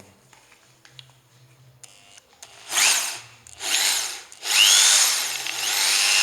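JLD electric impact drill running free with no bit fitted, triggered in three bursts after a few light clicks: two short ones, then a longer one of about two and a half seconds. Each burst spins up with a rising whine.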